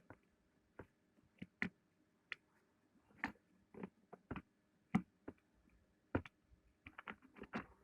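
Irregular clicks and light knocks of Makita 6412 drill parts being handled as the drill is put back together with a new armature, several in a quick cluster near the end.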